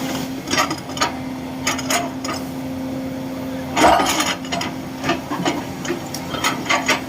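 A steady machine hum with irregular knocks and clanks over it, the loudest a little before four seconds in.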